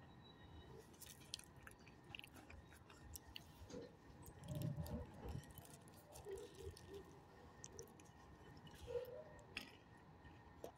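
Mostly quiet, with faint scattered small crunches and clicks from a dog moving close by on gravel, a little louder about halfway through and again briefly near the end.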